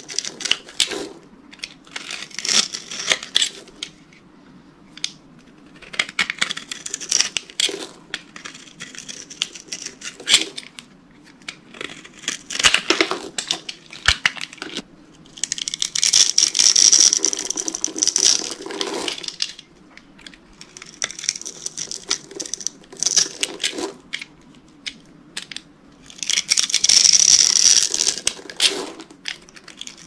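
A utility-knife blade cutting through a bar of dry soap, scoring it into small cubes and slicing them off with crisp crackling crunches. The crunches come in short bursts every second or two, with two longer runs of dense crackling past the middle and near the end.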